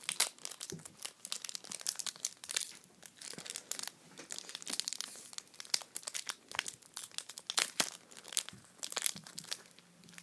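Foil wrapper of a Pokémon trading card booster pack crinkling and tearing as it is opened by hand, a dense run of irregular sharp crackles.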